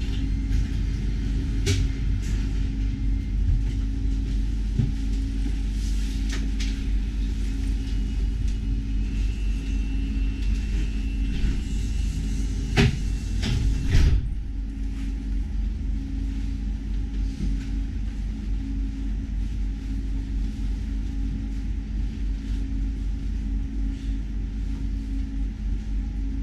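Steady low rumble and hum of a stationary light rail tram's onboard equipment, with a few sharp knocks, the loudest about halfway through.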